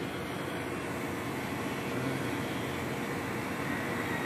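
Steady outdoor street background noise: an even rushing hum with no distinct events.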